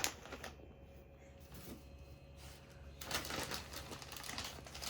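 Mostly quiet for about three seconds, then soft rustling and light clicking as diapers and their plastic bag are handled and put away.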